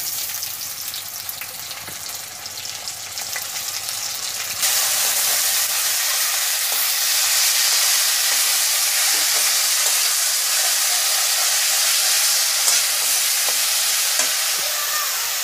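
Onions and masala paste sizzling in mustard oil in a kadai while being stirred with a metal spatula. The sizzle is a steady hiss that grows louder about five seconds in.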